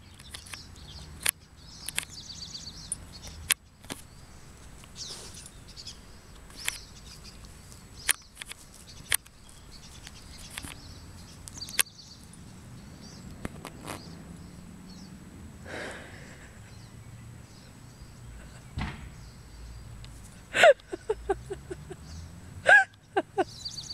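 Border Collie puppy chewing a pinecone, with sharp cracks and crunches every second or so as the scales break. Birds chirp faintly in the background.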